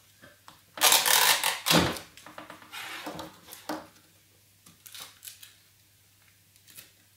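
Sellotape pulled off the roll with a loud rip about a second in, then softer rustling of thin card and a few light taps as the tape is pressed down to fix a cardboard strip onto the frame.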